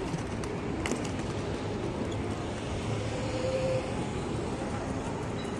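Steady rushing background noise of an outdoor urban plaza, with a few faint clicks about a second in.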